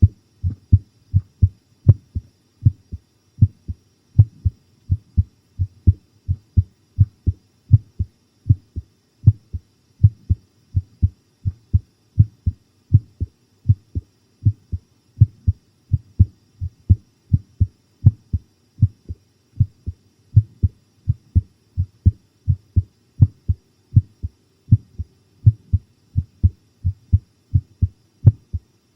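A person's heartbeat recorded close up, pounding steadily as a quick run of low thumps, the heart racing with fright.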